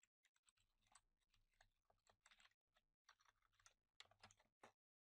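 Very faint computer keyboard typing: an irregular run of soft key clicks.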